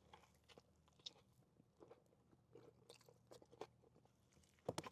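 Faint mouth sounds of someone chewing and crunching a bite of bacon-wrapped hot dog, scattered soft crackles with a louder crunch near the end.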